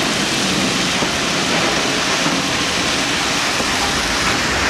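Railway ballast hopper car dumping crushed stone through its open bottom gates onto the track: a steady rushing of falling stone.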